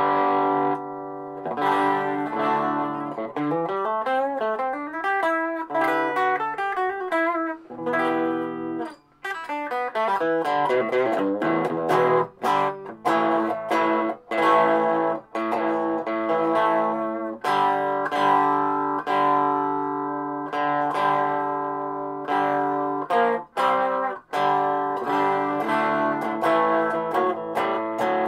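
Electric guitar played through a Donner 5-watt mini amplifier: chords strummed and picked, with a run of single notes climbing a few seconds in. The player feels one of the strings is out of tune.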